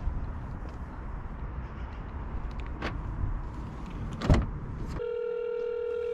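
Low steady rumble with a single sharp knock about four seconds in, then a telephone ringback tone starting about five seconds in: an outgoing call ringing before it is answered.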